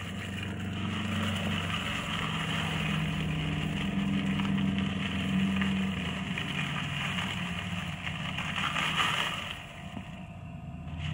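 Oat flakes pouring from a packet into a plastic shaker cup, a continuous dry rustle that stops about a second and a half before the end, over a steady low machine hum.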